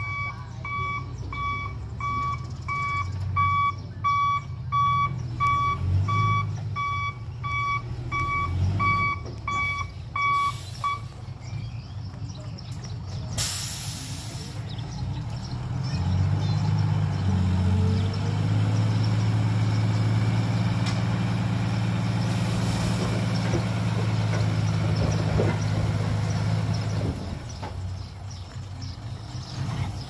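Dump truck reversing with its backup beeper sounding about twice a second over the running diesel engine; the beeping stops about 11 seconds in. A short burst of air hiss follows about two seconds later, typical of the air brake being set. The engine then revs up and holds steady for about ten seconds while the hydraulic hoist tips the loaded bed, and drops back near the end.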